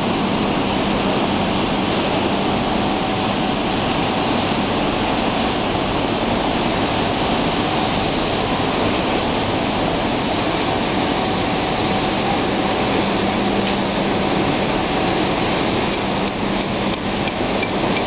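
Steady, loud din of cement-plant machinery: a dense clatter of metal on metal over a low hum. A few sharp clicks come near the end.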